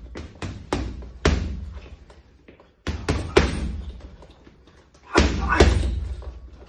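Boxing gloves punching a hanging heavy bag: sharp thuds in quick combinations, several in the first second and a half, two more around three seconds, and a louder flurry just past the five-second mark.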